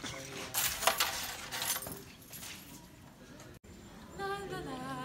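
A backpack is snatched up off a table, with rustling and clinking that are loudest in the first two seconds. After a sudden cut, a woman's voice hums a few wordless notes near the end.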